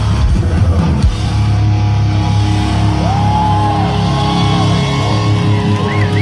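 Loud rock music with guitar, a sung melody line coming in about halfway through.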